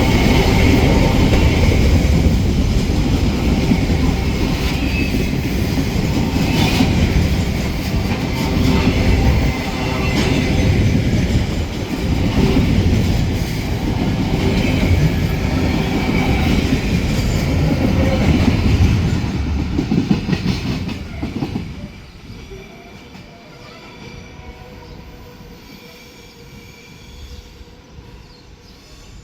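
Freight train wagons rolling past on the rails with rhythmic clacking and some wheel squeal. The noise drops sharply about 21 seconds in, leaving only a faint background.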